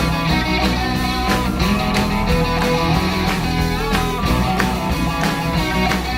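Live band music: a rock song with guitar and drums.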